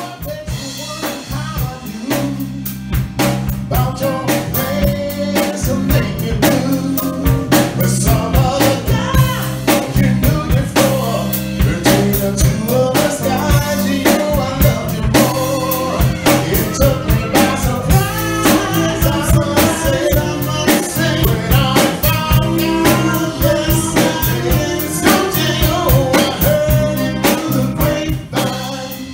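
Live band playing an R&B/Motown groove: electric guitar, bass guitar, drum kit and keyboard, with a voice singing over a steady drum beat. The music drops off sharply just before the end.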